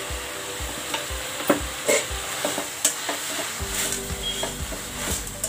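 Sorrel (pulicha keerai) leaves sautéing with salt in a metal pan: a spatula stirring and scraping against the pan with scattered clicks, over a steady sizzle of the leaves in hot oil.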